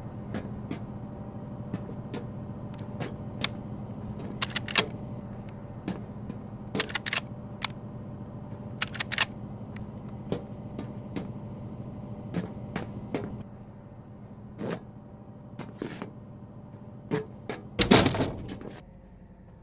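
Homemade foley sound effects: a steady low hum under a scattering of irregular clicks and knocks, with a louder burst of knocking just before the end.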